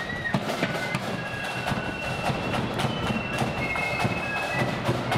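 Loyalist marching flute band playing a tune: shrill flutes holding and stepping between high notes over a steady beat of drums.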